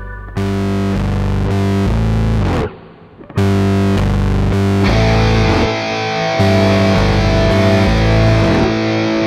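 Background rock music with a distorted electric guitar. It drops out briefly about three seconds in, then comes back.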